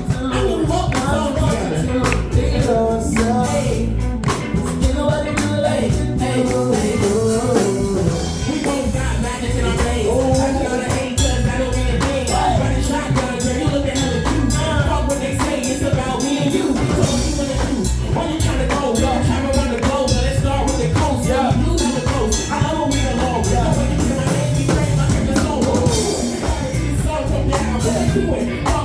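Music with a steady beat and singing.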